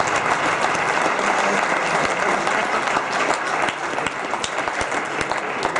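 Audience applauding: many hands clapping in a dense, steady clatter that thins out and drops a little in level in the last two seconds.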